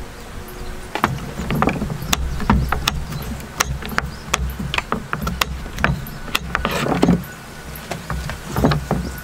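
Kitchen knife slicing raw carrots on a hard cutting board: irregular sharp clicks of the blade striking the board, with a low rumble underneath.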